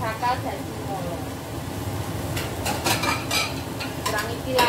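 Ceramic plates clinking against each other as they are lifted out of a dish rack, a short cluster of clinks about two and a half to three and a half seconds in, over a steady low hiss.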